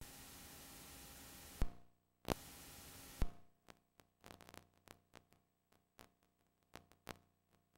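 Hiss of a blank VHS tape as playback begins, broken by three sharp clicks. The hiss cuts out between the clicks, then gives way to sparse faint crackles and ticks.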